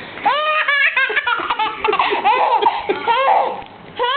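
A four-and-a-half-month-old baby boy laughing: quick runs of high-pitched laughs, a brief pause about three and a half seconds in, then laughing again near the end.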